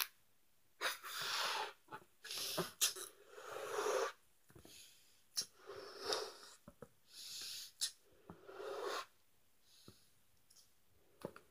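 A balloon being blown up by mouth: about seven breaths pushed into it, each under a second, with a few short clicks in the gaps.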